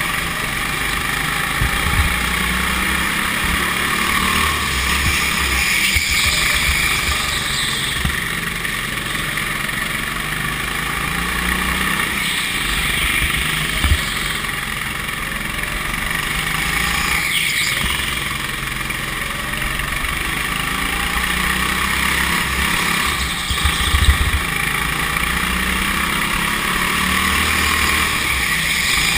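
Go-kart engine running as the kart laps the track, heard from on board the kart.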